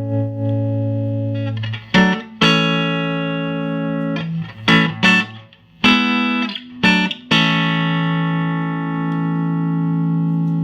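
Electric guitar chords from a Fender Stratocaster played straight into a 1968 Fender Princeton amp, with the amp's volume, treble and bass all on 10. A chord rings out, then from about two seconds in comes a run of short chord hits with brief stops between them, and a long sustained chord rings through the last few seconds.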